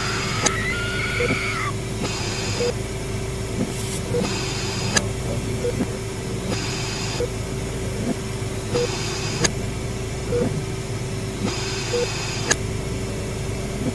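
Layered horror sound-effect ambience: a steady low hum and drone with short hissing bursts about every two seconds, scattered sharp clicks, and a wavering glide that rises and falls in the first two seconds.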